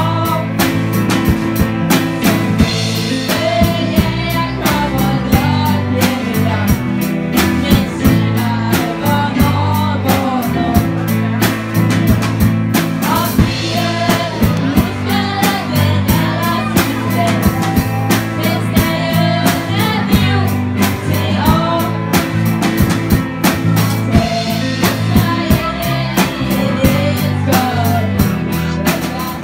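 A live school band playing a song: two girls singing lead over a drum kit keeping a steady beat, with guitars and keyboards.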